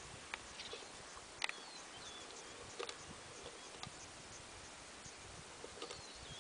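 Quiet open-grassland ambience: a steady hiss with scattered sharp clicks, the loudest about a second and a half in, and a few brief high chirps about two seconds in and again near the end.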